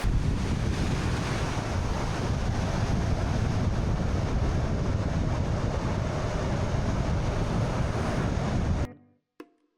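Steady rushing of a rocky mountain creek's water, with wind buffeting the microphone. It cuts off suddenly near the end.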